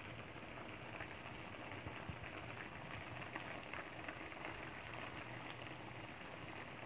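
Squid broth simmering in a wok: a faint, steady bubbling with a patter of small pops.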